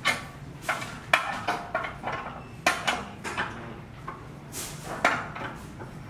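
Steel rebar being bent by hand with a lever on a bending bench, the bar and lever knocking against the bench's steel pins: a dozen or so sharp metallic clinks and clanks at an uneven pace, each ringing briefly.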